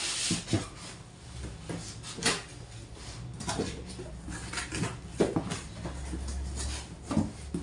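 A cardboard box being handled and lifted away: irregular scrapes, rustles and light knocks of the cardboard.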